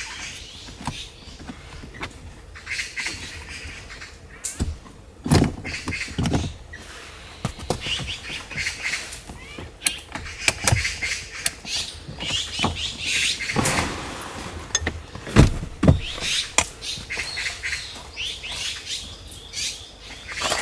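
Birds chirping in woodland over a series of knocks, clicks and thumps from handling things up close. The loudest thump comes about three quarters of the way through.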